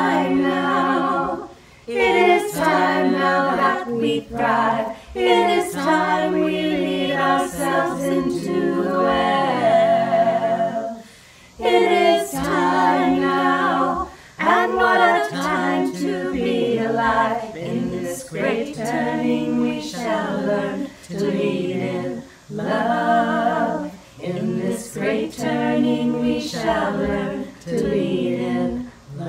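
A small group of women singing a cappella together, with no instruments, in sung phrases separated by short breath pauses.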